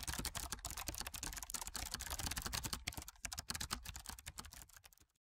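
Rapid, continuous clicking of keys being typed, a keyboard-typing sound effect. It stops suddenly near the end.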